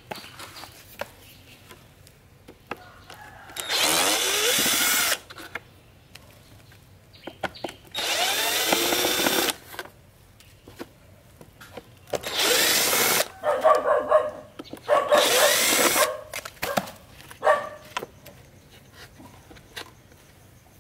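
Handheld electric power tool, drill-like, run in four short bursts of a second or so, its motor spinning up at the start of each. Shorter, rougher bursts come between the later runs.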